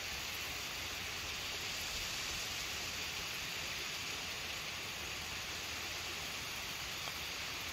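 Steady, even outdoor background hiss. Near the end comes a single faint click of a putter striking a golf ball.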